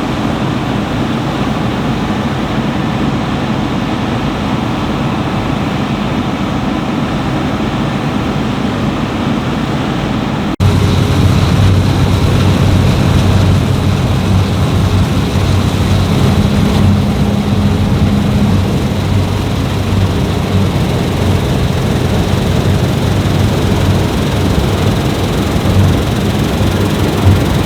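Fendt Ideal 10T combine harvester running under load while harvesting wheat, a continuous steady drone of engine and threshing machinery. About ten seconds in, the sound cuts abruptly to a louder, deeper drone.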